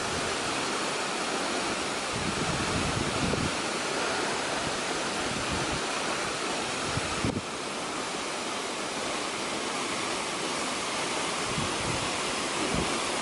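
Steady rush of falling water from Haew Narok waterfall, with low gusts of wind buffeting the microphone.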